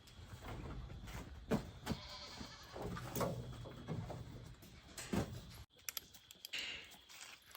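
Goats bleating several times, over a low steady rumble that cuts off abruptly about two thirds of the way through.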